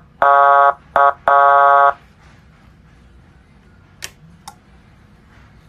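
12 V 200 W electronic siren unit sounding its buzzy horn tone through its speaker in three blasts, short, very short, then longer, within the first two seconds. Two sharp clicks follow about four seconds in.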